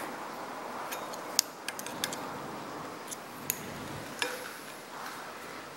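Light metal clicks and ticks, about six scattered over a few seconds, as a small steel pick and the metal parts of a dividing head are handled and worked loose by hand.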